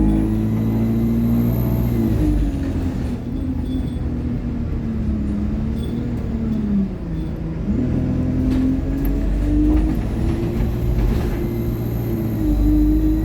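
ADL Enviro200 single-deck bus running under way, its Allison automatic gearbox whining with a pitch that shifts with the gear changes, and a thin high turbo whistle rising and falling near the start and again about ten seconds in.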